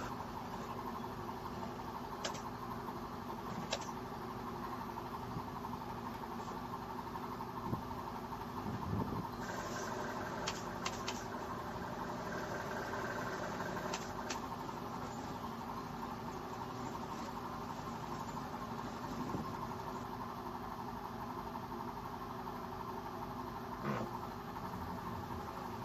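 Steady mechanical hum with a few faint clicks and knocks scattered through it.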